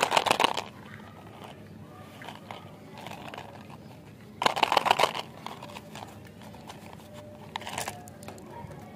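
Fruit Chew cardboard candy tube being handled and opened, with crisp crackling and clicking of the cardboard. One burst fades about half a second in, another comes about four and a half seconds in, and a shorter one near the end as the candies are tipped out into a palm.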